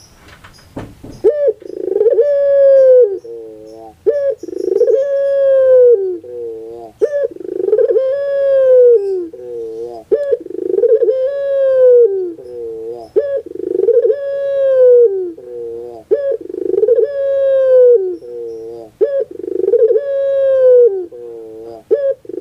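Puter pelung dove (Barbary dove) cooing again and again, about once every three seconds. Each call is a long, slightly falling coo followed by a few short stepped notes. A brief rustle or clatter comes just before the first call.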